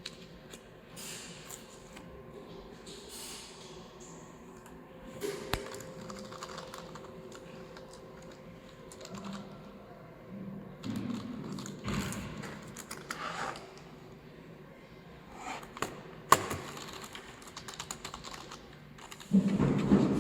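Typing on a computer keyboard in scattered bursts, with a few sharper clicks and knocks.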